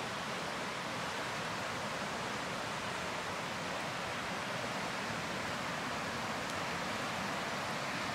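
A raging mountain river rushing steadily, a constant even wash of water noise.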